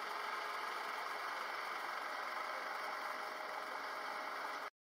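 Steady mechanical hum and hiss with a few faint steady tones, unchanging throughout, cutting off abruptly near the end.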